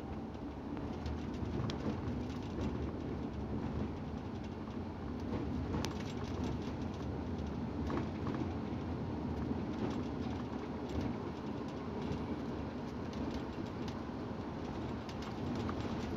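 Steady low rumble of a coach's engine and tyres on the road, heard inside the cab, with occasional sharp ticks scattered through it.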